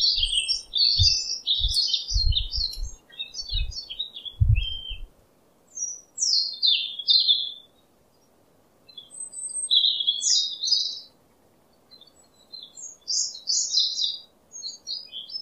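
Small birds chirping and twittering in quick high runs that come in several bouts with pauses between them. Low dull thumps sound during the first few seconds.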